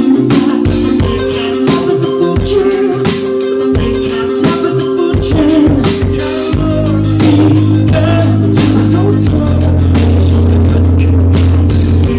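Live band playing an indie rock song: a male lead vocal sung over synth keyboards and a drum kit keeping a steady beat. About six and a half seconds in, a deep sustained bass note comes in under the band and holds.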